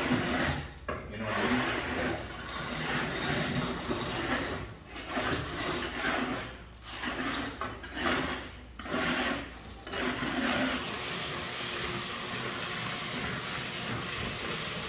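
Steel slats of a plasma table's water tray scraping as they are lifted out, irregular rasping with short pauses. About ten seconds in it gives way to a steady even hiss of a vacuum hose sucking water out of the tray.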